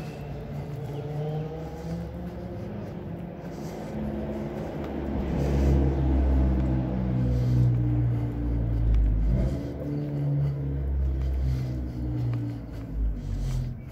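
A car engine running close by: a low, steady hum that grows louder from about five seconds in and eases off near the end.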